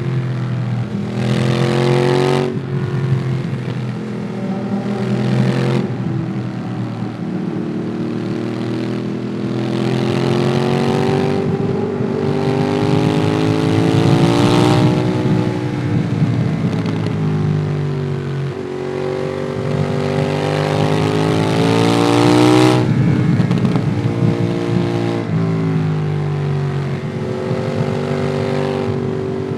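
Ducati Monster 821's L-twin engine through a QD Twin Gunshot aftermarket exhaust, heard onboard while riding: the engine note climbs and falls repeatedly as the bike accelerates and rolls off, with several sudden drops in pitch at gear changes.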